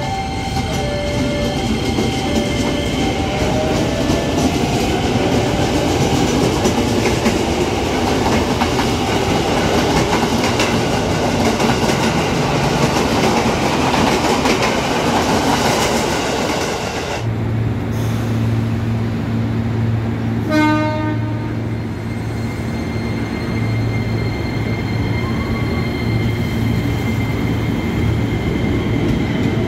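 IGBT-VVVF traction inverters and motors of KRL Commuter Line electric trains. A train pulls away: stepped inverter tones give way to a rising whine as it accelerates, with wheel and rolling noise building. About seventeen seconds in this cuts off, replaced by a second train's steady low hum, a brief horn blast a few seconds later, and a new rising inverter whine starting near the end.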